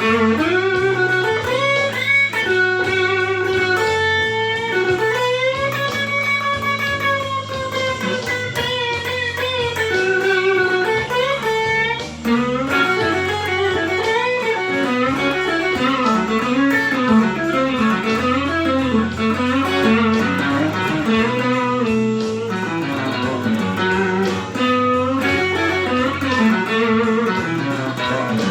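Stratocaster through a Tube Screamer TS9 overdrive into a Fender Blues Junior tube amp, playing a slow-blues lead with string bends and wide vibrato, with a long bent note held about six seconds in, over a backing track with bass.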